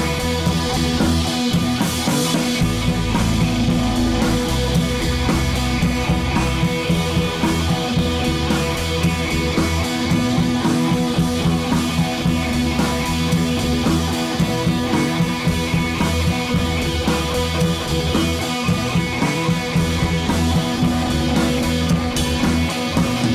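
Background rock music with guitar and drum kit and a steady beat.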